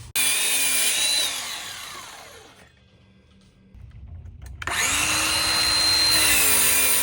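DEWALT DWS779 12-inch sliding compound miter saw: the motor starts suddenly and runs, then is released and spins down with a falling whine into near silence. Just before 5 s it starts again and runs steadily.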